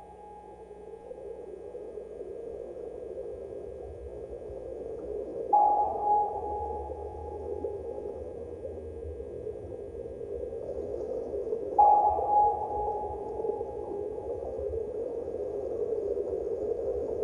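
Dark ambient sound-design drone: a hissing, droning bed that grows steadily louder. A sustained high tone starts sharply about every six seconds, three times in all, each lasting a few seconds.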